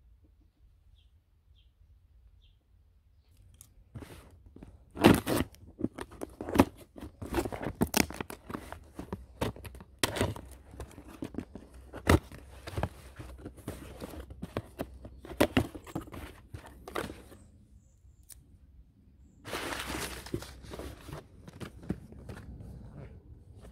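Crumpled kraft packing paper rustling and crunching, with cardboard box flaps and a boxed product knocking and scraping as they are handled. This comes as a run of sharp crackles starting about four seconds in. Near the end there is a longer, continuous rustle of wrapping.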